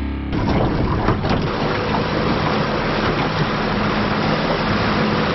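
Small boat under way at trolling speed: outboard motor running steadily with water rushing past the hull. A moment of background music cuts off just at the start.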